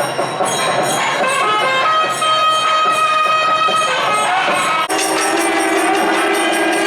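South Indian temple music, with a nadaswaram-like double-reed wind instrument playing long, held, ornamented notes. About five seconds in a sharp stroke sounds and a lower steady tone enters beneath the melody.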